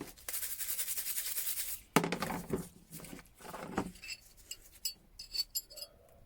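Small steel wrench parts being handled: a second or so of scraping or rubbing at first, then a series of light metallic clinks and taps with a brief high ring.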